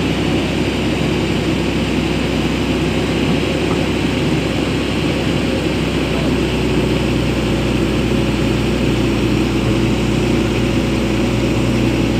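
Hitachi EX200LC excavator's diesel engine running with a loud, steady low drone while the machine is loaded onto a truck's lowboy trailer.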